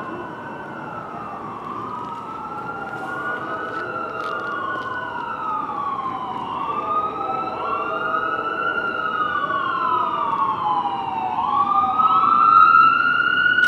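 An emergency vehicle's siren wailing, slowly rising and falling in pitch in overlapping sweeps, growing louder.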